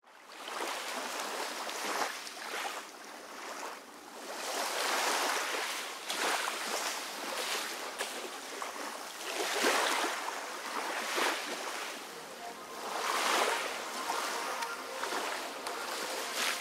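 Rushing noise on a boat under way, water and air streaming past, swelling and fading every one to three seconds.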